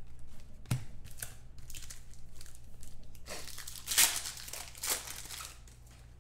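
Foil trading-card pack wrapper being torn and crinkled while cards are handled: a run of short rustles and crackles with a sharp tick early on, the loudest rip about four seconds in.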